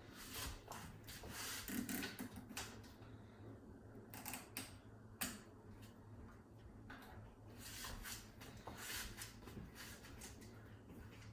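Quiet, irregular clicks and rustling of an electric bike horn and its mounting parts being handled and fitted to a bicycle, over a faint steady low hum.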